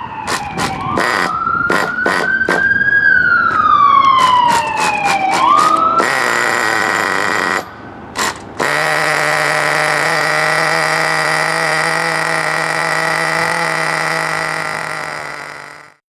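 A new 1/8-scale nitro buggy engine, heavily primed, firing up on start-up: it sputters with sharp pops while its pitch swoops up and down as it catches. After a short break it runs steadily at a high, even pitch, then fades out near the end.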